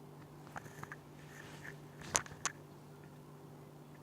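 A few short, sharp clicks, small ones in the first second and two louder ones a little after two seconds in, over a faint steady hum.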